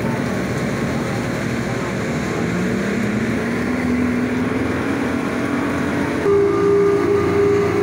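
Speedboat engine running at speed, with the rush of wind and water against the hull. About six seconds in, the sound steps up louder and a steady higher engine tone comes in.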